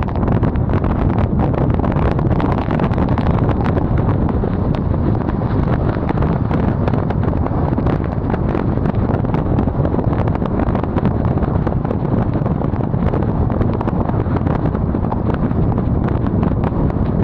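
Steady low wind rumble buffeting the microphone, unbroken throughout.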